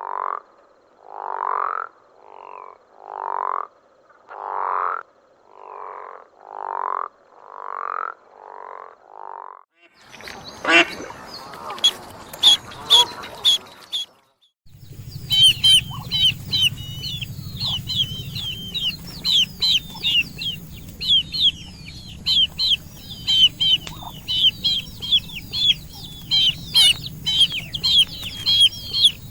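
Animal calls from several clips in turn: first about ten rising calls, roughly one a second, for nearly ten seconds; then a few seconds of rustling and clicks; then rapid, high, repeated chirps over a low hum for the rest.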